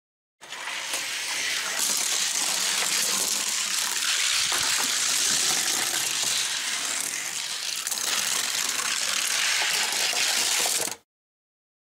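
Two 1:64-scale Hot Wheels die-cast cars, a 24 Ours and a 2011 Indy Car, rolling fast down a gravity race track with a steady rattling whir of small wheels on the track. It starts suddenly about half a second in and cuts off suddenly near the end.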